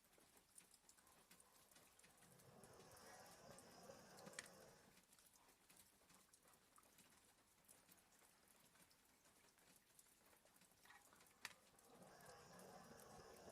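Faint dog snoring: two slow, drawn-out breaths about ten seconds apart, with light scattered ticks of rain tapping on a window between them.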